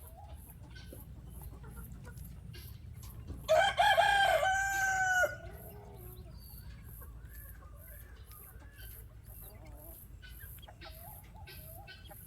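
A rooster crowing once, a loud call of nearly two seconds about three and a half seconds in. Soft short bird calls come before and after it, over a steady high-pitched insect pulsing.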